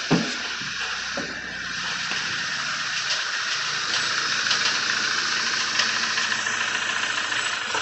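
Audi B8 A4 engine running roughly just after its first start, misfiring badly, which the owner suspects is from a bent valve. A sharp thump comes right at the start, then the running stays steady.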